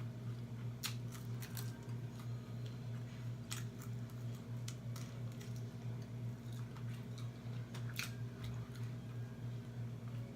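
Close-up chewing and biting of food, with wet squishing mouth sounds and a sharp crunch or click every second or so, over a steady low hum.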